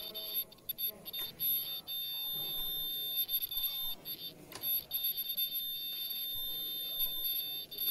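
Disposable mask production machine running: a steady high-pitched whine over the mechanism's hum, with irregular clicks and knocks.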